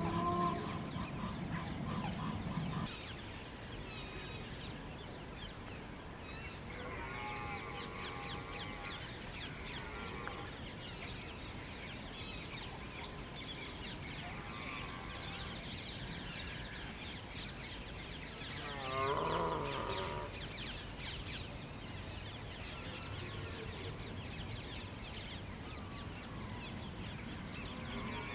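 Outdoor bird chorus. A goose honks during the first few seconds, then there is a steady stream of small-bird chirps with several harsher wavering calls, the loudest about two-thirds of the way through.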